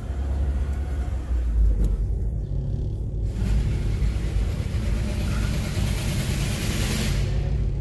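Car engine and road rumble heard from inside the moving car, a steady low drone. From about three seconds in, a hiss of tyre and wind noise builds as the car drives on, then drops away near the end.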